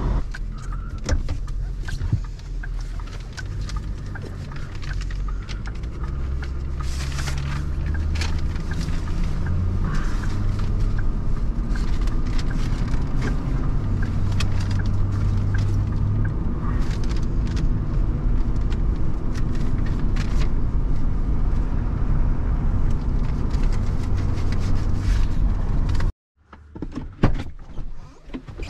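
2009 Ford F-250 pickup driving, a steady engine and road drone with scattered clicks and knocks. The drone cuts off suddenly near the end, leaving quieter, uneven sounds.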